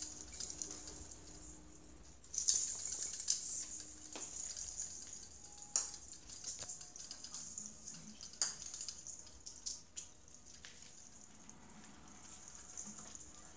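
Christmas tree branches rustling and crackling as a cat climbs and shifts about inside the tree, in fitful scratchy bursts with sharp little clicks, loudest a couple of seconds in.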